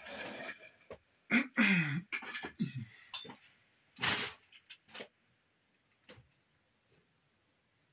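Rustling and handling noises as a large plush doll and its plastic wrapping are moved about, with a short wordless vocal sound about a second and a half in and a few sharp rustles and clicks later on.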